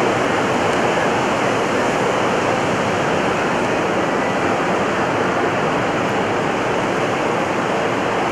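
Ocean surf breaking and washing up the beach, a steady loud rush of water.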